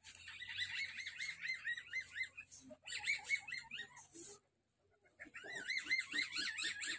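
A caged civet giving rapid, wavering high-pitched trilling calls in three bouts with short pauses between them. The calls come as the civets are coming into heat in the breeding season.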